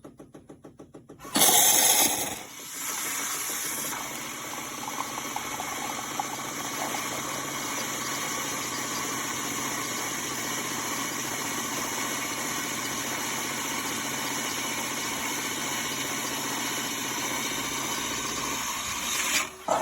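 Miele CM 5310 automatic coffee maker frothing milk for a cappuccino: a rapid pulsing of its pump, then a sudden loud burst of steam hiss about a second in, settling into a steady hissing, sputtering froth that goes on until a brief dip near the end.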